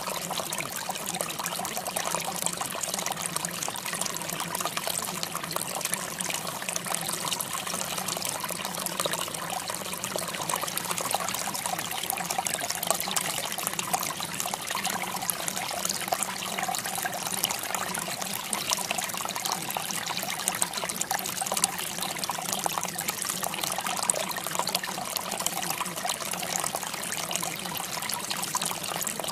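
Steady trickling, running water, even and unbroken throughout.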